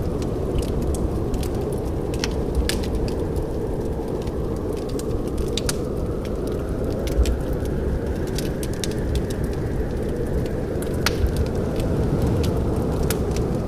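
Wood fire burning in a fireplace: irregular sharp crackles and pops, several a second at times, over a steady low rumble.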